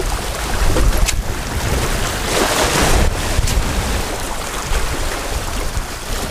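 Wind buffeting the microphone over ocean surf at the shoreline, with a wave washing in about two and a half seconds in. A couple of faint sharp clicks stand out over the noise.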